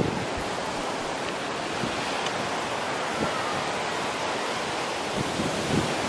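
Ocean surf breaking on a beach, with wind on the microphone: a steady rushing noise.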